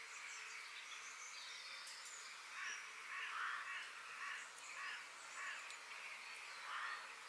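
Forest birds calling: scattered high chirps, joined about two and a half seconds in by a run of repeated rough calls, one every second or less.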